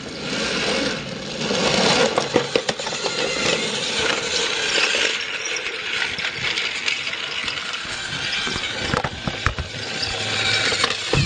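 Motorized toy train clattering along plastic track: a dense, continuous rattle of small clicks and knocks, with a heavier thump near the end.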